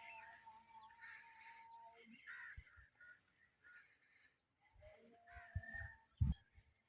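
Indian ringneck parakeet chirping in short, scattered calls, with a few low knocks and a louder thump near the end.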